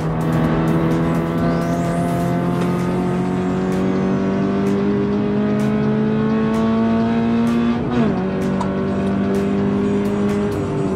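Toyota 86's flat-four engine through an aftermarket Fi valved exhaust, under hard acceleration: its pitch climbs steadily for about eight seconds. A quick upshift follows, then it pulls at a lower pitch and lifts off near the end.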